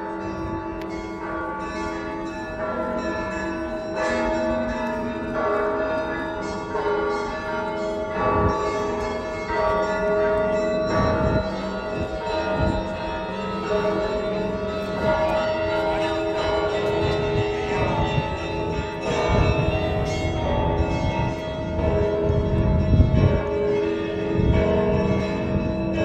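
Bells of the Cathedral of Christ the Saviour ringing the festive Easter peal: many Russian Orthodox bells struck in quick succession, one after another, over the lasting hum of the larger bells.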